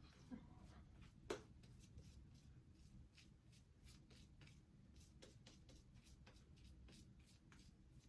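Near silence with faint scratchy rustling and many small irregular clicks, and one sharper click about a second in.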